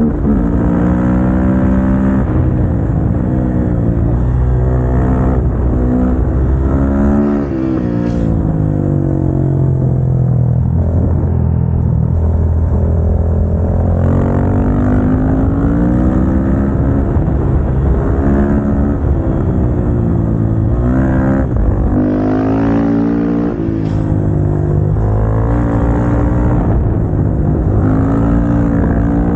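KTM 690 SMC-R single-cylinder supermoto engine heard on board, its revs climbing and falling repeatedly as it accelerates, shifts gear and slows, with a steep drop in revs a little over seven seconds in.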